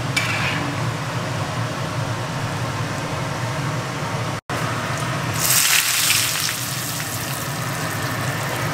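Hot cooking oil poured from a wok onto a bowl of pickled-cabbage fish topped with scallions, chilli and coriander, giving a loud crackling sizzle about a second after a cut midway through, then settling to a softer sizzle. A steady low hum runs underneath throughout.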